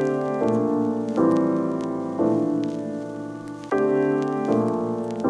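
Intro music: keyboard chords, each struck and left to ring and fade, changing about every second.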